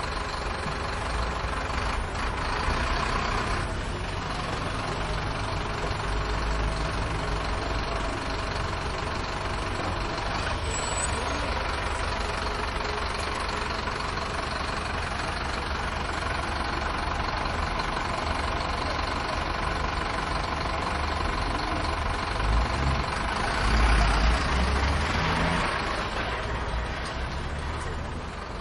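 Bus terminal ambience: heavy bus engines idling and running under a steady din of traffic noise. A louder swell of low engine rumble comes near the end.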